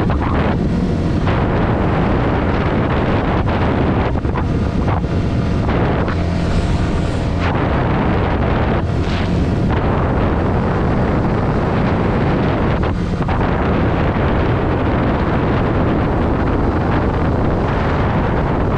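Heavy wind rush on the microphone from riding a Yamaha XSR125, with its single-cylinder four-stroke engine running beneath it. Several times the wind noise eases briefly and the engine's tone comes through more clearly.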